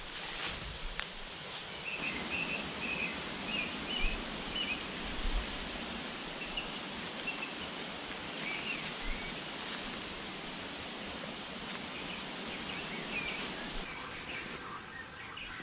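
Steady rustling of grass and leafy undergrowth, with small birds chirping repeatedly throughout; the rustling eases near the end.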